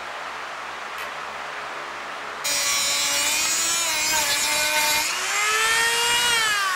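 Handheld rotary tool with a small abrasive cut-off wheel cutting through the rubber of an old go-kart tire on its rim. Its high motor whine starts about two and a half seconds in, and the pitch wanders up and down as it cuts.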